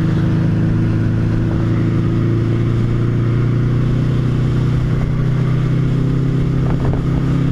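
Motorcycle engine running at a steady, unchanging speed while riding, with wind noise over it.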